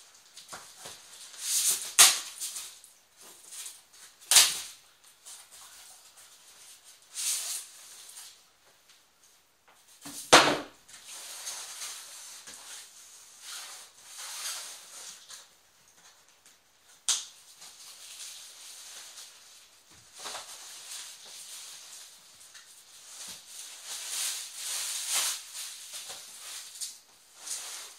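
Cardboard TV box being handled and opened: rustling and scraping of the cardboard flaps, with a few sharp knocks along the way. Near the end, a packing sheet crinkles as it is pulled out.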